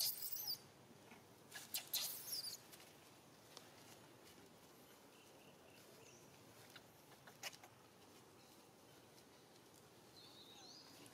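Baby monkey giving short, high-pitched squeaks: two brief bursts in the first few seconds and a short squeal near the end, with a few faint clicks between.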